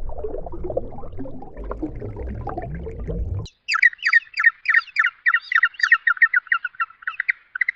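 A low, rough sound for about the first three and a half seconds, then a sudden cut to a bird calling in quick repeated chirps, about five a second.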